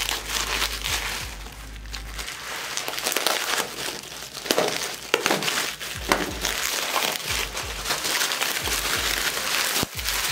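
Bubble wrap crinkling and crackling as hands handle it and pull it off a wrapped part, with a few louder crunches in the middle and a sharp one near the end.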